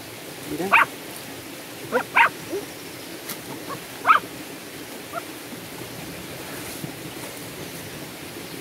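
A dog wedged in a rock crevice gives a handful of short, high whining yelps over the first four seconds or so.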